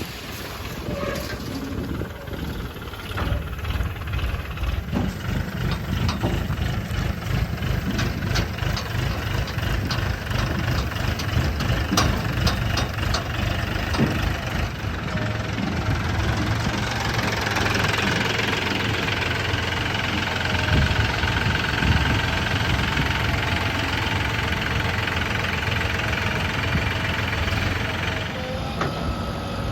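Heavy diesel earthmoving machinery running and working, with a steady low engine rumble. Scattered sharp knocks and clatter come through the first half, and a higher whine rises over the engine from a little past halfway until near the end.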